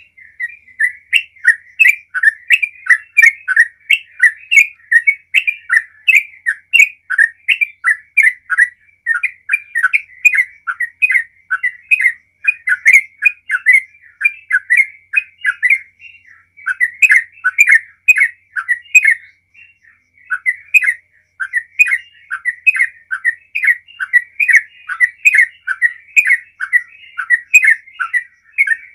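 Yellow-vented bulbul singing a long run of short, quickly repeated chirping notes, about two to three a second, with brief breaks about 16 and 20 seconds in. This is the long 'ropel' song delivery that bulbul keepers prize.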